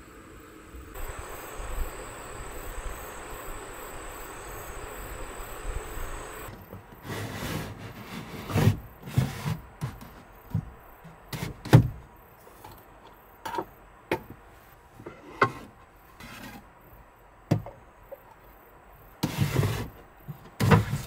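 Wooden sliding cupboard doors of a camper van's built-in kitchen cabinet being slid open and shut, with a string of knocks and thumps as they hit their stops, starting about seven seconds in. Before that, a steady hiss.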